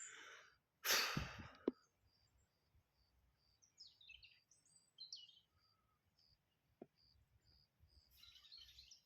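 Wild birds calling: a steady run of short, high pips repeating about twice a second, with scattered quick chirps, and a brief loud rush of noise about a second in.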